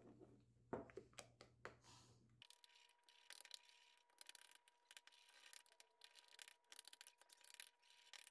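Metal spoon stirring a thick cream-cheese batter in a ceramic bowl: faint, repeated scraping strokes against the bowl with occasional clicks of metal on ceramic.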